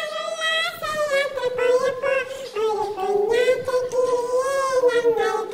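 A woman's voice singing a melody without words, one long wavering line of tune.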